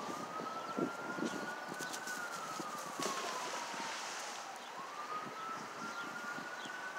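A siren wailing, its single tone sliding slowly up and down, about one rise and fall every five seconds, with light rustling and knocks underneath.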